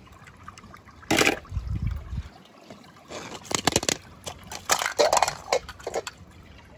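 Water sloshing and splashing as clear plastic eggs holding water and toy cars are handled and opened. A run of sharp clicks and knocks comes about three seconds in, and more near five seconds.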